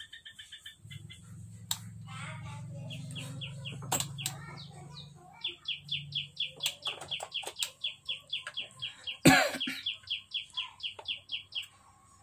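A small animal's chirping calls: short, high, falling chirps repeated about three times a second, over a low steady hum that stops about nine seconds in. One sharp click about nine seconds in is the loudest sound.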